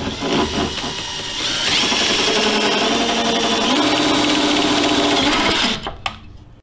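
Cordless drill driving a right-angle drill attachment, drilling a hole through the cowl panel. The motor whine steps up in speed about a second and a half in, runs steadily, and stops near the end.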